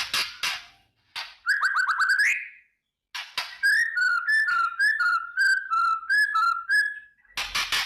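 White-rumped shama (murai batu) singing: a short harsh crackling rattle (the 'kretekan' call), a quick run of sliding notes ending in a trill, then a string of clear alternating whistles. The crackling rattle returns near the end.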